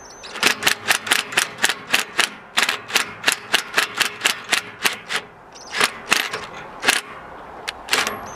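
Cordless impact driver hammering in short bursts, about four a second, then a few spaced bursts near the end. It is running the centre bolt that draws a sawmill bandwheel onto its spindle.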